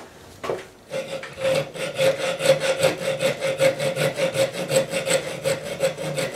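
Hand file rasping across the steel back of a folding knife blade held in a small vise, squaring off its rounded edges. The quick, even strokes begin about a second in, with a steady ringing note under them.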